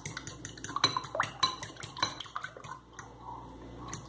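Fork beating raw eggs in a bowl: a quick run of light clicks of the tines against the bowl, thinning out about two and a half seconds in.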